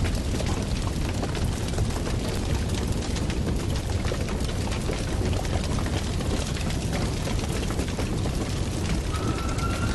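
Steady, dense rumbling noise with many small crackles throughout. A thin, slightly falling tone comes in near the end.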